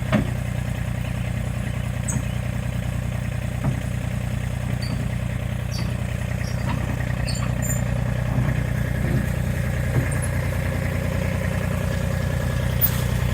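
Engine running steadily at idle, with a few light clanks and knocks over it.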